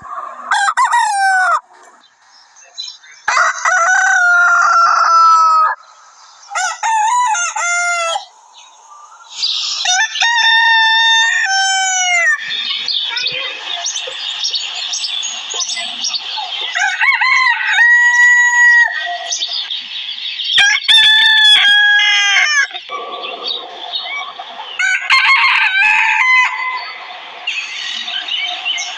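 Desi roosters crowing in turn: four separate long crows in the first twelve seconds, each ending in a falling note, then several more crows overlapping one another over a steady background haze.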